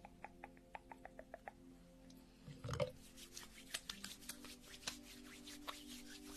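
Close-up hand and finger sounds near the microphone: a quick run of light ticks, a soft bump a little before the middle, then scattered crisp clicks, over faint background music.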